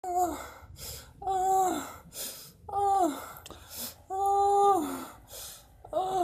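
A person crying in five wailing sobs, each held on one pitch and then falling off, with sharp gasping breaths in between.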